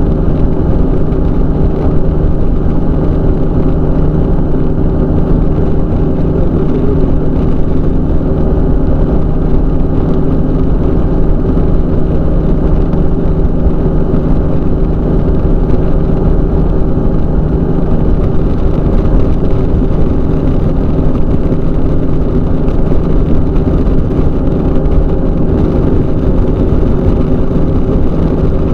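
Weight-shift microlight trike's engine and propeller running steadily at cruise power in flight, with wind rushing over the microphone.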